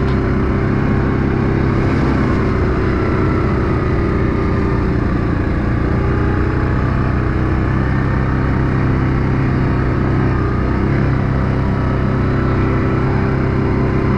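Yamaha Grizzly ATV's single-cylinder four-stroke engine running steadily at trail speed, heard on board while riding a rough, rutted dirt trail.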